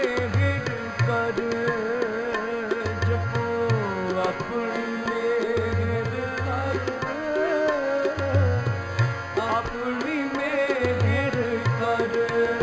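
Background music: tabla strokes under a wavering, ornamented melody over a held drone.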